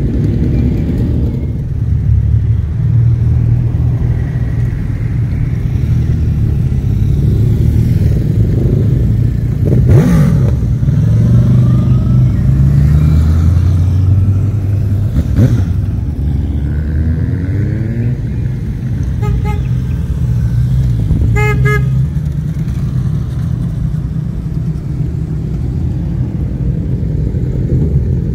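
Motorcycles riding out one after another, engines running at low revs with sharp blips of the throttle about ten and fifteen seconds in. A horn gives a few quick toots about two-thirds of the way through.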